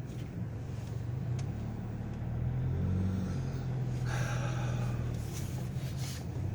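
Car engine and road noise heard from inside the cabin: a low steady hum whose pitch shifts slightly midway, with a few brief hissing swells near the end.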